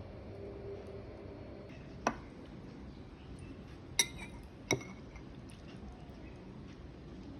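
Three sharp clinks of a utensil against dishware, about two, four and four and a half seconds in, each with a brief ring.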